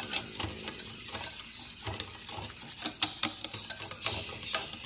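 Wire whisk beating yogurt in a glass bowl, with quick, irregular clicks as the wires hit the glass and soft thumps underneath. The yogurt is being whisked smooth for dahi bade.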